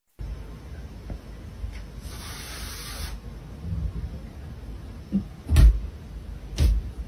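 A cat's paws thumping against a mirror, twice about a second apart, over low room noise.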